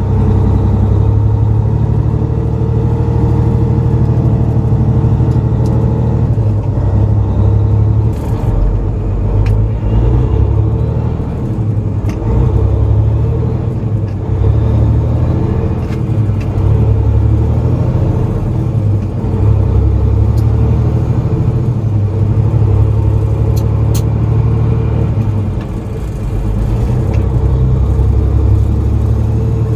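Straight-piped semi truck diesel engine heard from the cab, a low rumble that swells and eases with the throttle while the truck moves slowly in traffic.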